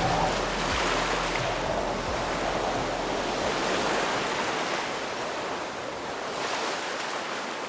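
Ocean surf washing onto a beach, swelling and easing every few seconds, with some wind on the microphone, growing slowly fainter.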